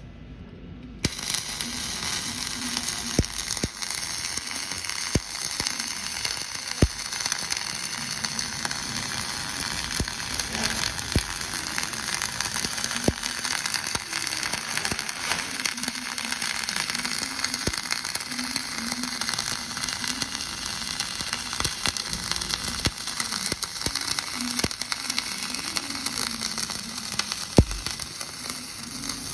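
Flux-cored arc welding with 0.045-inch self-shielded wire: the arc strikes about a second in and burns with a steady crackling sizzle, dotted with sharp spatter pops.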